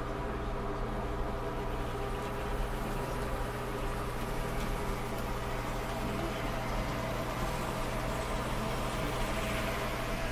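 N scale Life-Like E8 model diesel locomotive running around the track: its small electric motor and drive give a steady hum of several even tones, with no change in speed.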